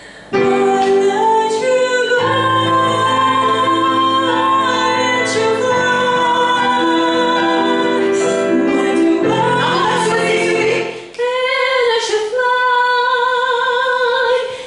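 A young woman sings a slow ballad phrase, accompanied by chords on a digital piano. There is a brief break about eleven seconds in, then she sings on.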